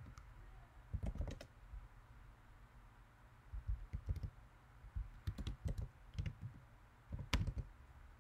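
Typing on a computer keyboard in several short bursts of keystrokes, with pauses between.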